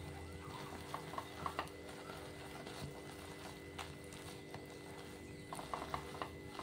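Pav buns pressed and turned in a hot nonstick pan of bhaji: two short runs of quick clicks and crackles, one about a second in and one near the end, over a steady low hum.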